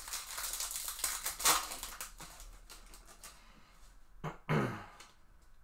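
Foil trading-card pack wrapper being torn open and crinkled by hand, a dense crackle loudest about a second and a half in, then quieter rustling of the cards. A brief low sound about four and a half seconds in.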